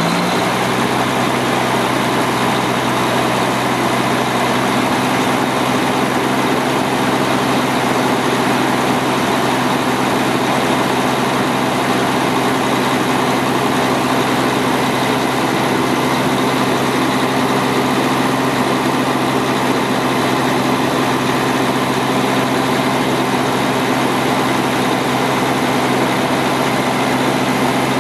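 1995 Ford L9000 cement truck's diesel engine idling steadily.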